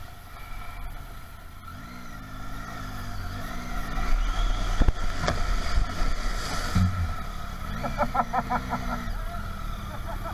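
Triumph Tiger 800's three-cylinder engine running as the bike rides a rough dirt byway, its revs rising and falling, heard from a camera mounted on the bike. A sharp knock comes about halfway through, and a short run of rapid pulses near the end.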